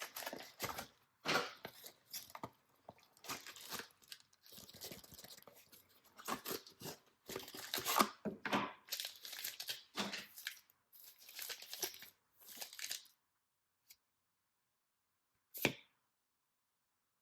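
Packaging of a Pokémon TCG Build & Battle box being opened by hand: irregular tearing, crinkling and crackling of wrapping for about thirteen seconds. Then it goes silent, with one sharp tap near the end.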